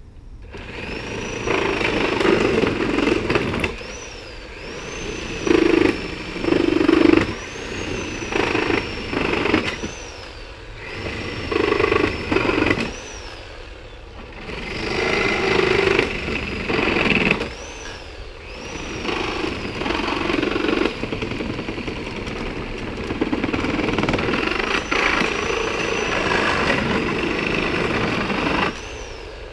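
Skil 7.5-amp variable-speed corded reciprocating saw, fitted with a Milwaukee nail-embedded wood-cutting blade, cutting a pallet apart between its boards and through the nails. It runs in repeated bursts of a few seconds, and the motor whine rises and falls in pitch as the trigger is squeezed and eased.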